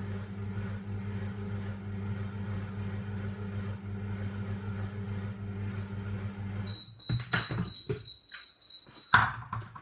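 Monsieur Cuisine food processor's motor running at a low blending speed, a steady hum that stops about seven seconds in at the end of its timed run. A high-pitched tone follows for a couple of seconds, then clicks and a loud knock as the lid is unlocked and lifted off.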